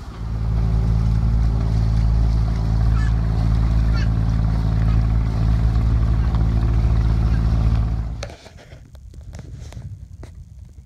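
A sailboat's inboard engine running steadily as the boat motors along at about six knots, a loud low drone that stops abruptly about eight seconds in. After it, only a quieter wash of water with a few light clicks.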